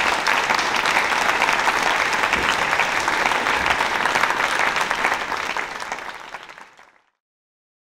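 Audience applauding, a steady clapping that fades away and stops near the end.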